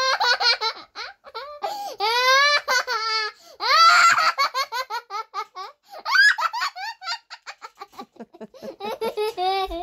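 A baby laughing in about five high-pitched bouts, each breaking into quick runs of short laughs, as she is nuzzled in play.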